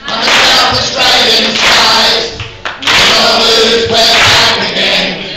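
A room of people singing a rousing football-club anthem together with a male lead singer, clapping along: two loud sung phrases with a short break between them.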